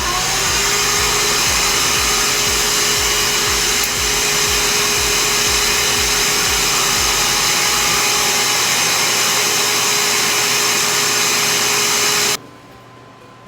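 Small high-speed electric motor and fan running steadily with a loud rush of air and a held hum, rising in pitch as it spins up at the start and switched off suddenly about twelve seconds in.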